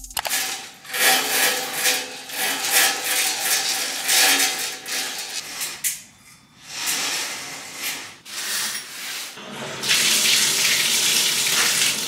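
Uneven noise that comes and goes, then a bathtub tap turned on about ten seconds in, with water running steadily into the tub.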